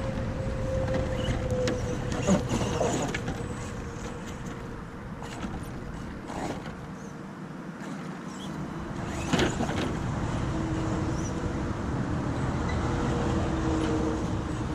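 An MST MTX-1 RC monster truck's 3000kV Dynamite electric motor whines steadily as the truck crawls over rocks. The pitch of the whine drops partway through, and a few sharp knocks come from the tyres and chassis striking stone.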